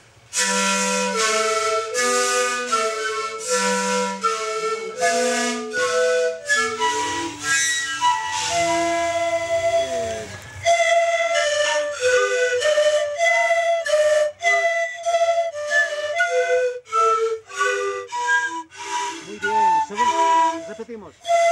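Several panpipes played together in a run of short, separate, breathy notes, each held briefly at one pitch.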